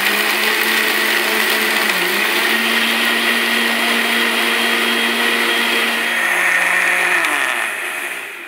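Electric mixer grinder running with its blender jar full of almonds and milk, a steady loud motor whine with the liquid churning. Near the end the motor winds down as it is switched off.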